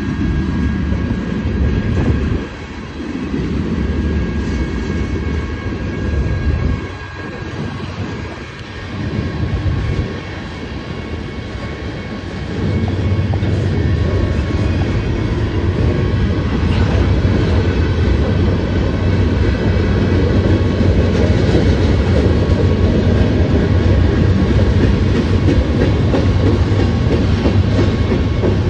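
Union Pacific freight train rolling past, its wheels rumbling and clattering over the rails. Partway through it grows louder and steadier, with a low drone as the mid-train diesel locomotives come by.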